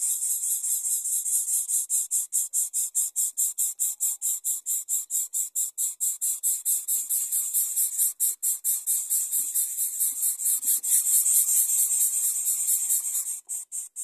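Insect trilling: a rapid, even pulsing of high hiss, about seven pulses a second, with faint rustles in the nest grass partway through.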